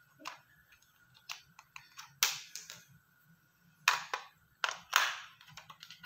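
Batteries being pushed and clicked into a plastic toy airplane's battery compartment: an irregular run of sharp plastic clicks and taps, the loudest about two seconds in and again near four and five seconds.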